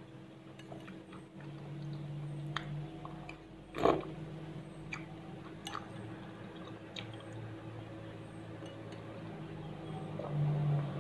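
Someone eating sweet pumpkin kolak from a ceramic bowl with a metal spoon: chewing, with a few light clinks of the spoon against the bowl. There is one louder noise about four seconds in.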